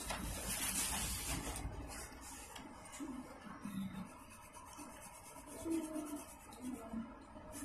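Coloured pencil shading on paper: a scratchy rubbing, loudest for the first second and a half, then fainter.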